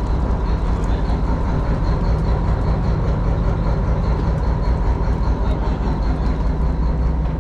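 Fishing boat's engine running steadily at constant speed, a loud, even drone.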